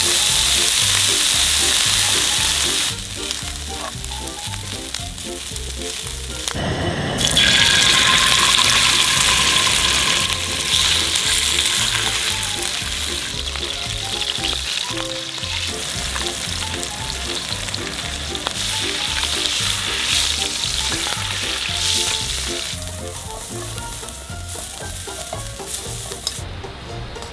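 Oil sizzling in a frying pan as food fries, with salmon steaks turned in the oil partway through. The sizzle is loudest in the first few seconds and again around eight seconds in. Soft background music with a steady beat plays underneath.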